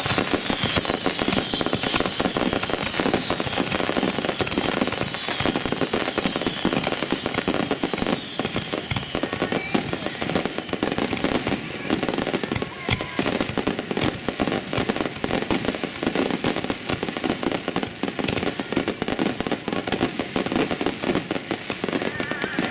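Fireworks display at close range: a dense, continuous barrage of shell bursts, bangs and crackling. Through the first half a string of high whistles, each falling in pitch, runs over the bangs.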